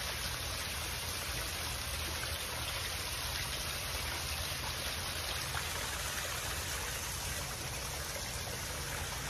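Water from a backyard koi pond's waterfall running steadily.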